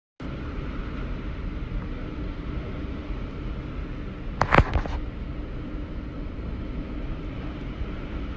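Storm wind roaring with driving heavy rain. About halfway through, a few loud, sharp knocks or cracks in quick succession stand out.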